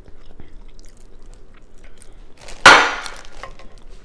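Shellfish from a seafood boil being broken apart by hand over a plastic bag: small crackles and clicks, then one loud sharp crack about two and a half seconds in that dies away quickly.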